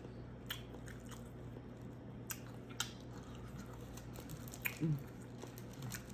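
Close-up chewing and mouth smacks of someone eating seafood boil, with a few sharp wet clicks spread through and a brief low vocal sound about five seconds in.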